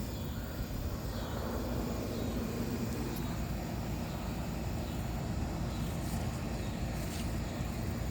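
Steady low rumble with a faint drawn-out drone.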